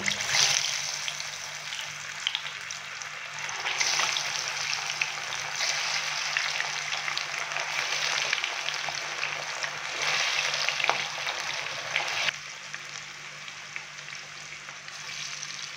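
Coated chicken pieces going one at a time into well-heated oil in a frying pan and deep-frying with a dense sizzle. The sizzle swells each time more pieces go in, then settles to a quieter steady fry near the end.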